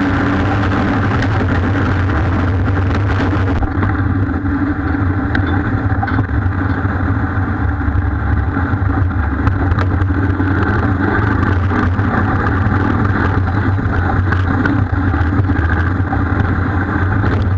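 Engine of an off-road vehicle running steadily as it drives over a rough dirt track, with scattered knocks and rattles. A hiss in the high end cuts out about three and a half seconds in.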